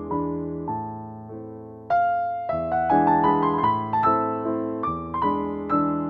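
Solo piano playing a waltz in A minor: a chord dies away, then a louder chord comes in about two seconds in, followed by a run of melody notes over it.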